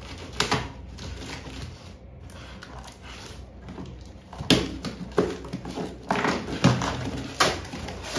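Cardboard shipping box being opened by hand: the packing tape is slit and torn, and the flaps are pulled open. There is a sharp crackle early, then a quick run of rips and cardboard crackles in the second half.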